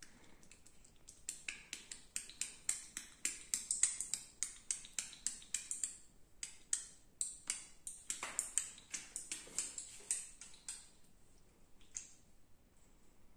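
Hands massaging a bare belly and chest: a quick run of sharp clicking taps of fingers on skin, about four a second, stopping near the end.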